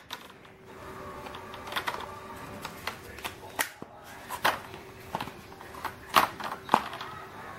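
Irregular light plastic clicks and taps from handling the HP G60 laptop's screen lid as its bezel is worked loose, over a faint steady hum.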